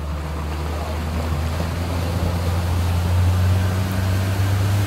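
Speedboat engine running steadily with a low drone, getting louder about three seconds in, over the hiss of water along the hull.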